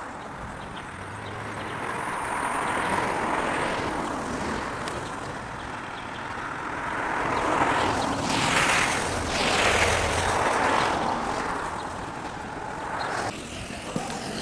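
Traffic passing on a wet road: a few vehicles go by one after another, the tyre and engine noise swelling and fading with each.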